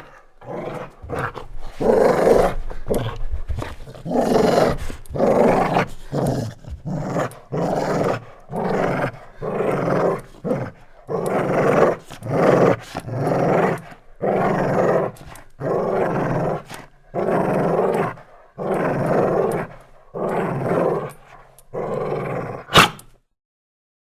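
Golden Labrador growling over and over in a long run of rough growls, each about a second long with short breaks between them. One short, sharp sound, the loudest of all, comes near the end.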